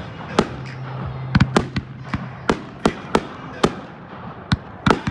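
Aerial fireworks shells bursting in quick, irregular succession: about a dozen sharp bangs with short echoes, several close together about a second and a half in and again near the end.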